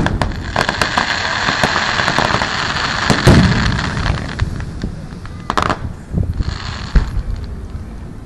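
Aerial fireworks shells bursting: a sharp bang at the start, then a quick run of crackling pops with a deep boom about three seconds in, and further single bangs about five and a half and seven seconds in.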